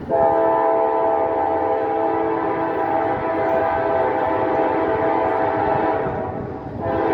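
Norfolk Southern locomotive's air horn sounding a long blast, a chord of several steady notes, over the running noise of the train. The horn dips briefly about six and a half seconds in and sounds again near the end.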